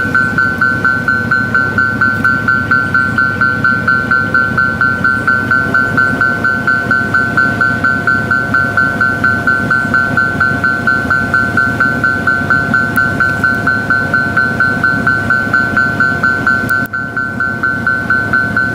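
Japanese level-crossing warning bell ringing steadily, an electronic ding repeating at about two to three strikes a second, with a low rumble underneath.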